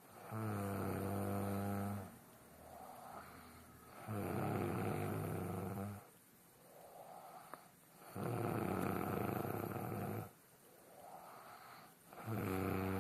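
A woman snoring in her sleep: four loud, rasping snores about four seconds apart, each lasting about two seconds, with softer breaths between them.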